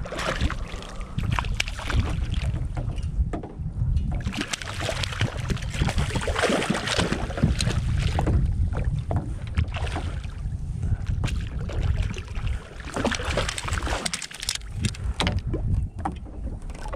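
Wind buffeting the microphone, with irregular water splashing as a hooked rainbow trout thrashes at the surface beside a kayak and is brought into a landing net.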